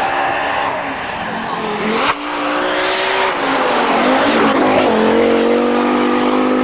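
Group B rally car engine at full throttle, its revs shifting and gliding, with a sharp crack about two seconds in, then held high and steady from about five seconds in.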